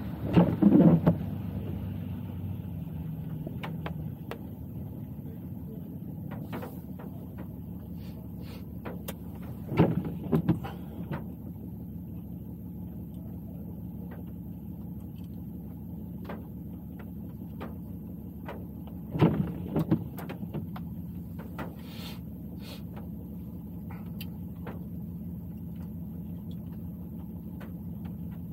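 Car cabin noise while driving in the rain: a steady low hum of engine and tyres, with a windshield-wiper sweep about every nine to ten seconds and scattered light ticks.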